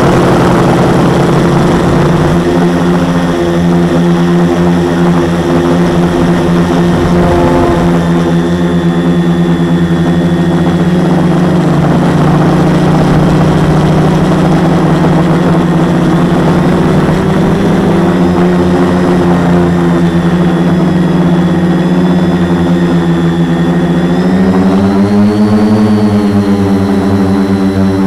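The four brushless motors (MultiStar 2212 920kv) and 10x4.5 propellers of a 450-size quadcopter, heard from its onboard camera, running at a steady pitch. About 24 seconds in the pitch rises, then it drops again near the end.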